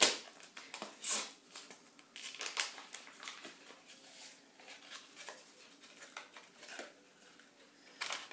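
Paper sachet of vanilla sugar crinkling and rustling as it is opened and shaken out over a bowl, in a string of short, irregular crackles, with a sharp knock at the start.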